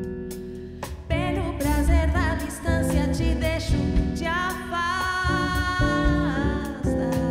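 A woman singing a song over acoustic guitar accompaniment. Near the middle she holds one long note with vibrato, which slides down near the end.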